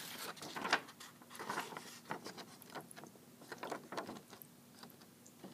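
Camera handling noise: irregular light clicks, knocks and rubbing as the camera is moved and turned by hand, fading out near the end.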